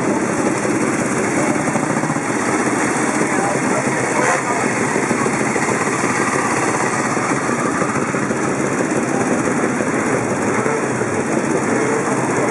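Several vintage motorcycle engines idling at a standstill, a steady mixed engine sound, with a crowd chattering.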